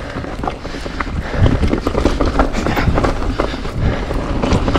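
Mountain bike rattling over a rocky trail: tyres hitting rock and the frame and drivetrain clattering in quick, irregular knocks over a low rumble, getting louder about a second and a half in.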